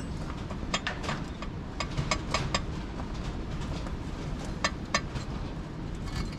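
Irregular light metallic clicks and knocks from tools and parts being handled on a tractor's clutch linkage, over a steady low rumble.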